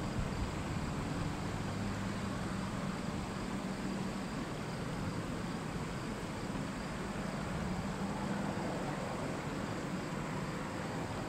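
Norfolk Southern freight train of trash containers rolling by on the track: a steady rumble of wheels on rail with a low, even hum underneath.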